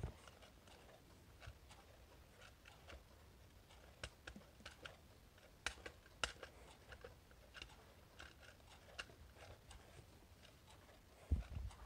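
Faint, irregular clicks and light plastic knocks from a quartz wall clock being handled as its hands are turned back by hand, with a louder knock near the end.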